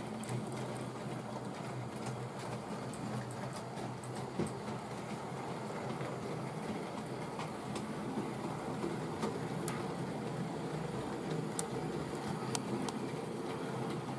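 OO gauge Hornby model train running on sectional track: a steady electric motor and gear hum with irregular small clicks from the wheels over rail joints and points.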